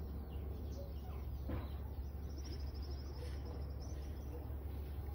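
Faint bird chirps, with a single falling call about one and a half seconds in and a rapid high trill just after, over a steady low hum.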